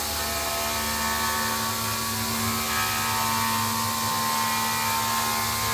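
Rottler P69AHD five-axis CNC machine porting an aluminium Subaru EJ25 cylinder head: a steady machining whine made of several held tones over a hiss. Its low hum shifts up a little over two seconds in.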